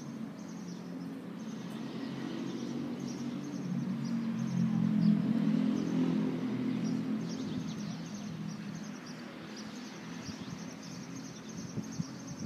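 Outdoor ambience: a low engine hum, as of a motor vehicle, swells to its loudest about halfway through and then fades, while birds chirp in short high calls.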